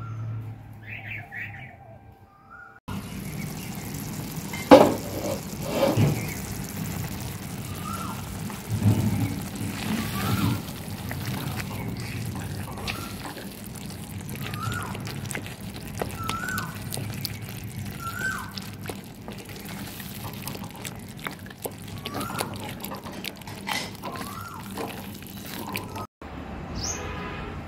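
Wooden spoon stirring and mashing cooked pumpkin (kaddu) in a clay pot, with a couple of knocks against the pot about five and six seconds in. In the second half a bird calls repeatedly, a short downward-hooked chirp about once a second.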